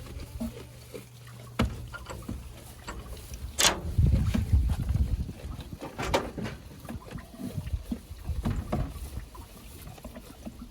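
Strong wind buffeting the microphone in low gusts, heaviest about four seconds in, with scattered clicks and knocks.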